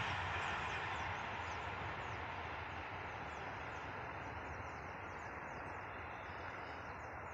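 Passenger train receding, its rumble fading steadily into the distance, while small birds chirp over it in short, quick, repeated falling notes.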